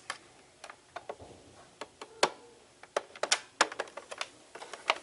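A dozen or so sharp clicks and knocks at an irregular pace, with a few louder ones about two to four seconds in.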